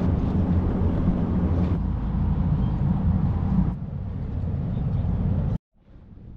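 Low, steady engine rumble that changes abruptly twice and cuts out sharply about five and a half seconds in, after which a fainter rumble returns.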